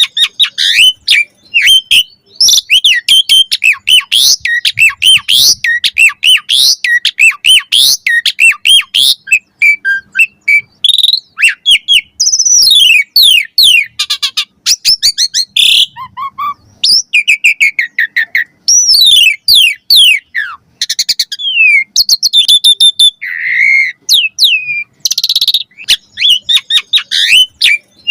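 Javan pied starling singing a fast, continuous and varied song of sliding whistles, chirps, clicks and harsh notes.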